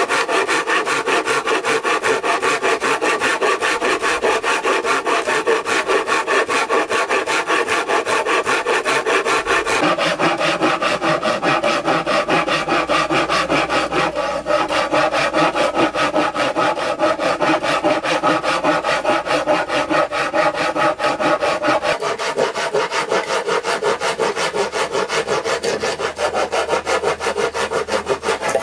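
Hand saw cutting through wood in quick, even back-and-forth strokes, about four a second.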